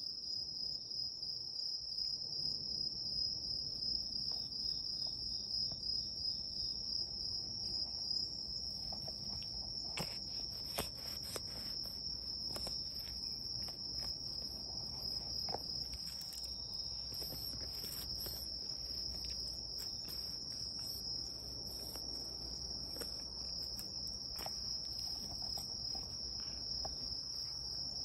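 Insect chorus at dusk: a continuous high-pitched trill. From about ten seconds in come scattered clicks and knocks as the cats nose and bump against the camera.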